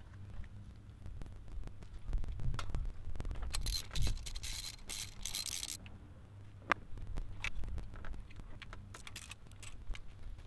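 Metal hand tools and engine parts clicking, clinking and scraping as a spark plug is fitted into the engine, with a denser run of rapid clicking for about two seconds midway.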